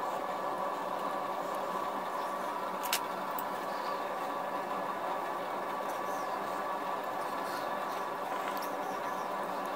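A steady mechanical hum, with faint scraping ticks of a small carving chisel paring wood from the background of a relief carving on a gunstock. One sharp click about three seconds in.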